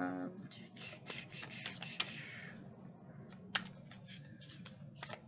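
Tarot cards shuffled by hand: a run of quick soft clicks and rustles as the cards slap together, dense for the first few seconds and sparser after.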